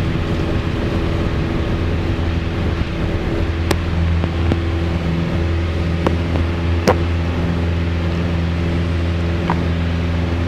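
Piper PA28-161 Warrior's four-cylinder Lycoming engine and propeller at full takeoff power, a steady drone through the takeoff roll and lift-off. A couple of sharp clicks sound midway.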